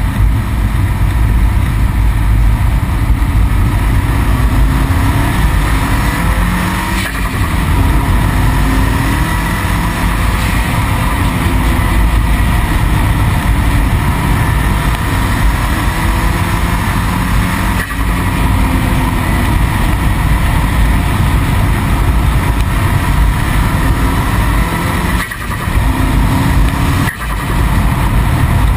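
Car driving fast, recorded from a camera mounted low on the outside of the body: heavy wind rumble over the microphone with the engine note underneath, rising as it accelerates. The sound briefly drops away a few times.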